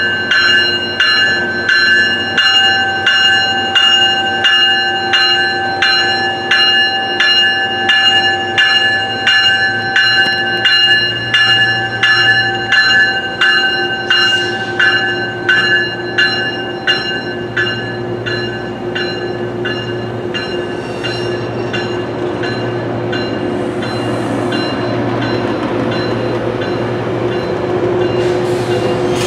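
A railway warning bell rings steadily, about two strokes a second, and fades out about two-thirds of the way through. Underneath, the rumble of a departing Metrolink train grows louder toward the end.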